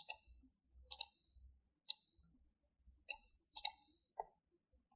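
Computer mouse clicking: about seven short, sharp clicks at irregular intervals, some in quick pairs.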